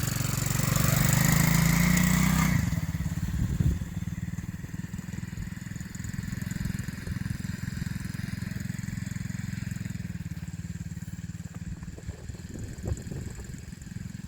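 Kids' mini ATV with a 110 cc four-stroke engine, running under throttle with its note rising slightly for about two seconds. About two and a half seconds in it drops off suddenly, and the engine runs on fainter and steady to the end.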